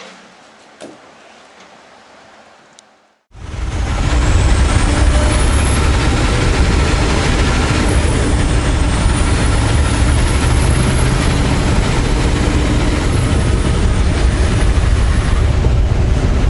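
Quiet background with a couple of short clicks. After a sudden cut about three seconds in, a semi truck's diesel engine runs steadily with loud road and cab noise, heard from inside the cab.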